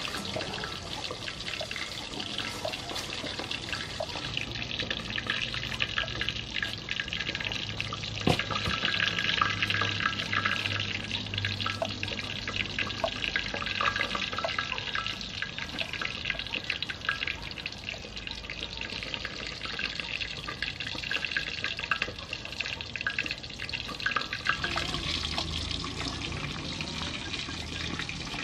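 Kitchen knife slicing fresh ginger root on a round wooden chopping board: many small clicks of the blade cutting through and meeting the wood, over a steady hiss.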